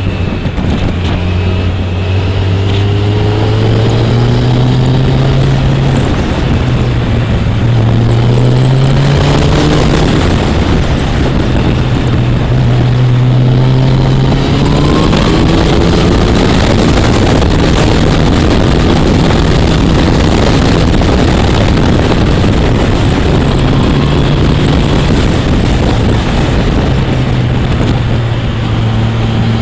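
Motorcycle engine heard on board, its pitch climbing under acceleration and stepping back down at each gear change, several times over, with heavy wind rush on the microphone.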